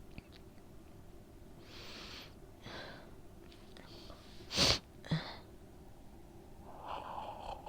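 A woman with a cold takes a couple of breaths, then sneezes once sharply about four and a half seconds in, with a smaller burst just after and a breathy exhale near the end.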